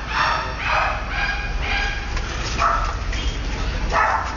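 Pit bull giving short, high barks in quick succession, about two a second, then two more spaced further apart.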